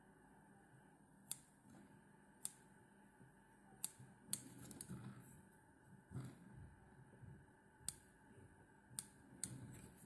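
Small curved fly-tying scissors snipping excess chamois fur from the top of a caddis fly's body: about seven short, sharp snips at uneven intervals, with faint handling rustle in between.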